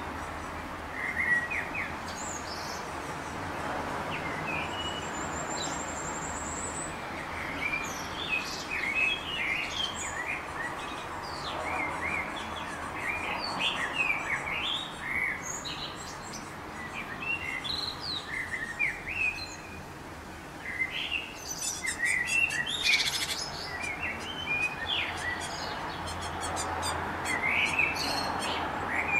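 Small songbirds chirping and calling many times in short, high notes, with a brief high trill now and then. A quick run of clicks comes about three-quarters of the way through.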